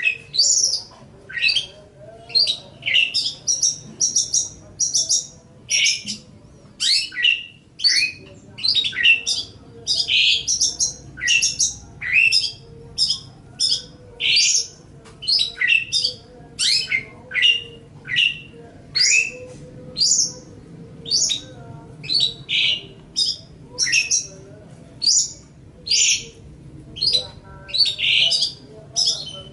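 Long-tailed shrike (cendet) singing: an unbroken run of short, sharp, high notes, many sliding down in pitch, about one to two a second.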